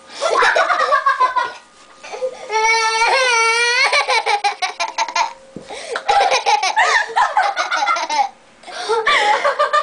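Laughter, much of it a young child's high-pitched giggling in quick pulses, with a long wavering squeal about three seconds in.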